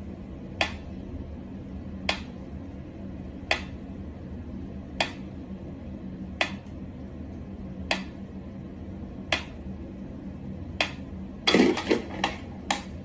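Mechanical pyramid metronome ticking at a slow, even beat, about one sharp tick every second and a half. Near the end a short cluster of louder knocks and scuffling breaks in.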